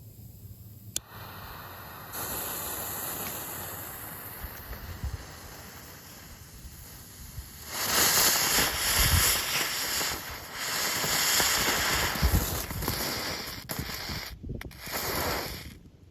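Small 'princess on wheels' novelty firework burning: a steady hiss at first, then from about eight seconds in a much louder sputtering spray of sparks with a few sharp pops, which dies away with a short last burst near the end.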